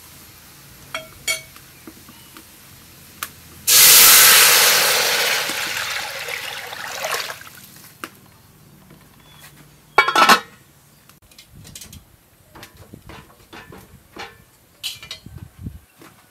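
Water poured into a hot pot of fried garlic and oil: a sudden loud rush and hiss about four seconds in that fades away over the next three to four seconds. A brief loud clatter follows about ten seconds in, then small scattered clicks.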